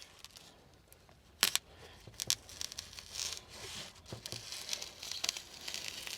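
Rustling, crinkling and tearing as sound-deadening foam is handled and fitted into a diesel heater, with scattered small clicks and one sharper knock about one and a half seconds in.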